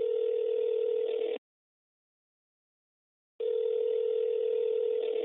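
Phone call ringing tone heard over the line, as a caller hears it while waiting for an answer. It is one steady low tone that stops a little over a second in and comes back about two seconds later.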